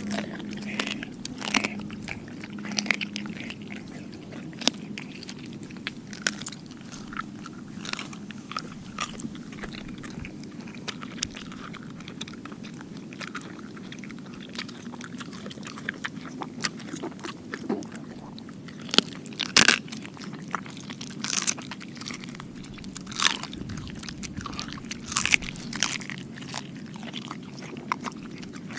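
Dog chewing raw chicken, with irregular wet bites and sharp crunches; the loudest crunches come about two-thirds of the way through.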